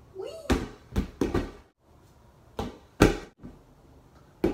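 Rubber ball being tossed up, kicked with the feet and slapped back by the hands: a string of about six sharp slaps and thumps at uneven gaps.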